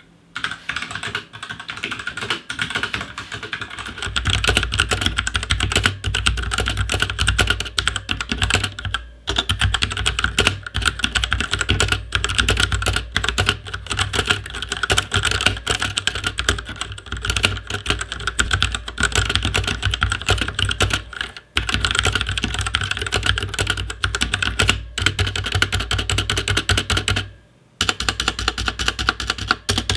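Fast, continuous typing on a Royal Kludge RK71 mechanical keyboard with RK red linear switches: a steady stream of key clacks, broken by a few short pauses.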